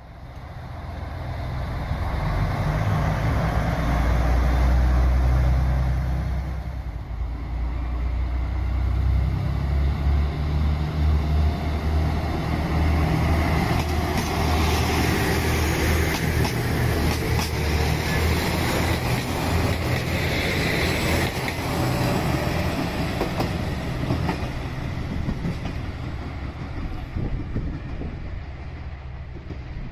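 JR Shikoku 2000 series diesel railcar running: a loud low engine drone, joined from about ten seconds in by rumbling wheels and a rapid run of rail clicks that fades gradually toward the end.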